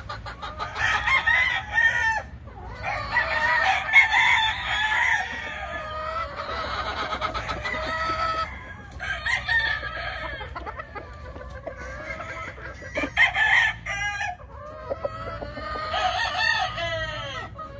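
Blueface and Leiper gamecocks crowing in repeated bouts, with hens clucking between crows.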